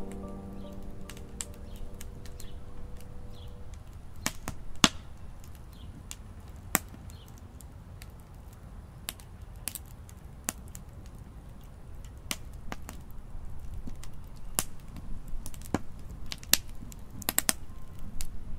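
Wood fire crackling in a stainless steel fire pit: sharp pops and snaps at irregular intervals, with a few louder cracks.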